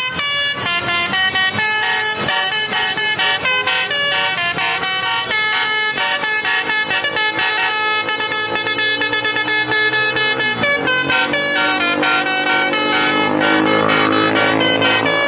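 Indonesian bus 'telolet basuri' multi-tone horn playing a fast melody of short, stepped notes, loud and continuous. In the last few seconds, lower sliding tones join underneath.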